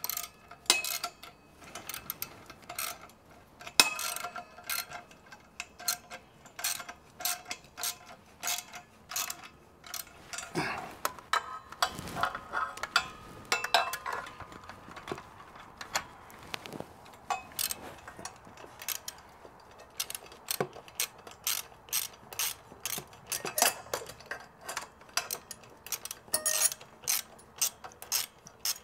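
Hand ratchet wrench clicking in short strokes while turning exhaust header bolts, with small metallic clinks and a dull knock about twelve seconds in.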